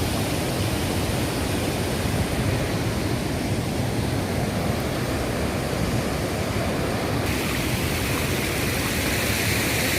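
Waterfall's falling water, a steady rushing noise that turns hissier about seven seconds in.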